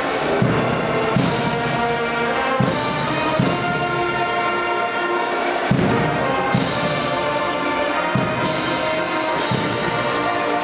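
Brass band music: trumpets and trombones playing held chords over low drum hits about once a second.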